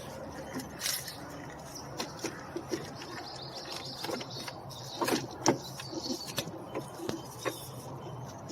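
Scattered light clicks and knocks of hands handling car door trim parts, over a steady low hum.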